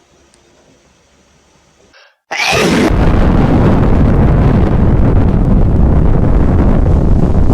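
A tiny hedgehog sneeze about two seconds in, then a split second of silence and a sudden, very loud explosion sound effect that carries on as a steady loud rumbling rush.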